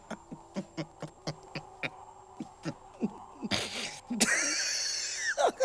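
Stifled laughter: short chuckling pulses, about four or five a second, with a louder breathy, wheezing burst of laughter a little past the middle.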